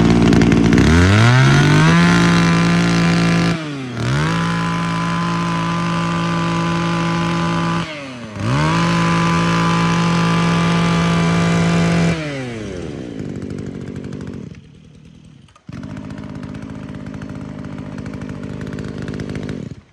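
Mitsubishi TB 27 cc two-stroke brush cutter engine running and revved up to a high, steady full-throttle whine three times, falling back between the runs. It then winds down and runs more quietly for the last few seconds.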